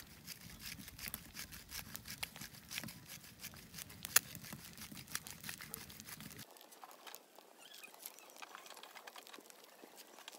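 Eggs frying in oil in a steel pan over a small wood stove: a steady sizzle of rapid fine crackles and spatters, with a sharper pop about four seconds in. The crackling thins after about six seconds.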